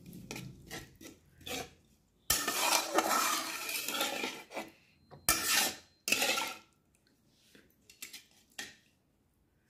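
Metal spatula stirring and scraping a thin masala gravy around a metal wok-style pan, in repeated strokes. There is a longer stretch of scraping in the middle, and the strokes die away near the end. Water has just been stirred into the fried masala to make the gravy.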